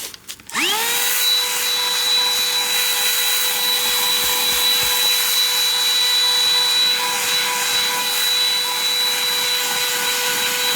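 Small battery-powered handheld car vacuum cleaner switched on about half a second in: its motor spins up quickly to a steady high whine over a rush of air.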